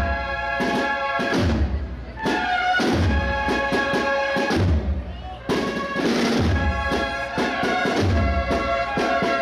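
Holy Week processional band playing: brass horns holding chords over steady bass drum beats, about one every second and a half.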